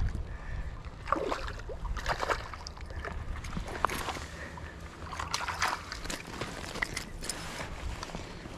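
A hooked rainbow trout splashing and thrashing at the surface as it is brought to the bank and scooped into a landing net, with irregular water sloshing and short knocks and rustles.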